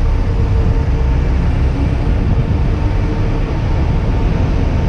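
Steady low rumble of town-centre road traffic.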